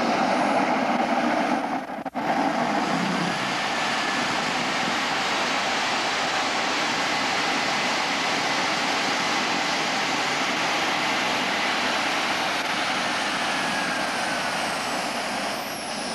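Simjet 1200 18-pound-thrust model jet turbine running steadily on a test stand: a loud, even rush of exhaust with a faint high whine. The sound briefly drops out about two seconds in.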